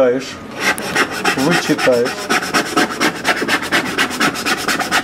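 A hand rubbing oil paint into a stretched canvas in quick, even scrubbing strokes, about five a second.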